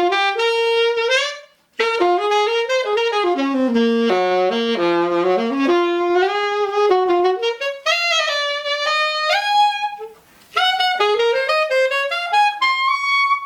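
1932 Conn 6M alto saxophone with a Ted Klum GS Special mouthpiece played in jazz-style melodic phrases, with short breaks about two seconds and about ten seconds in. It is played on an old, unmarked reed, slightly split down the middle and chipped at the tip, which the player finds a little soft.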